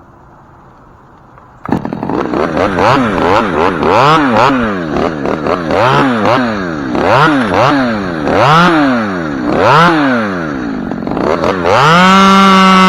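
Two-stroke chainsaw starting about two seconds in, its throttle blipped up and down about ten times, then held at steady full revs near the end as it is brought up to cutting speed.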